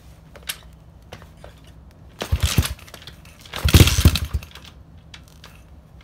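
Tao Tao DB17 125cc single-cylinder pit bike engine being kicked over twice, sputtering briefly each time through its aftermarket muffler without catching: a cold engine trying to start without choke.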